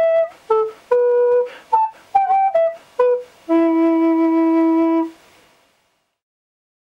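Tenor recorder playing a melody of short, separately tongued notes, then holding one long low final note that stops about five seconds in.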